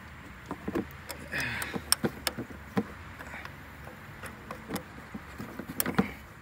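Pliers working a hose clamp on the upper radiator hose: scattered sharp metal clicks and knocks as the clamp is squeezed and slid back along the rubber hose.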